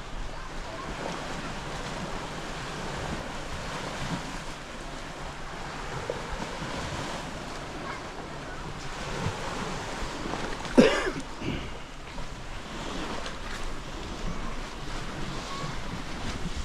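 Surf washing on a sandy beach, with wind buffeting the microphone. One brief, loud pitched call cuts through about two-thirds of the way in.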